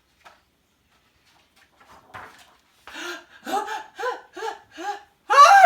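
A woman's voice acting out the build-up to a sneeze: a run of about six short, pitched "ah" gasps, about two a second, ending in a louder, higher "ah" near the end.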